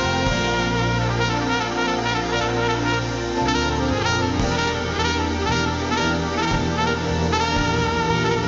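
Live instrumental worship music: a pitched lead instrument plays a wavering, sustained melody over held low bass notes.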